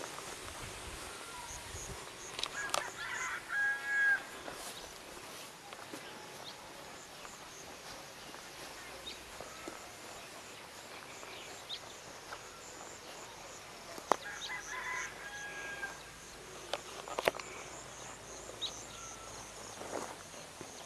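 A rooster crowing twice, about eleven seconds apart, each crow lasting a second or two. A few sharp clicks fall in between.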